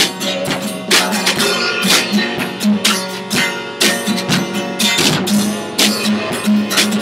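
Instrumental passage of a rock song: strummed acoustic guitar over a drum kit, with regular drum hits and cymbal crashes and a sustained low note underneath.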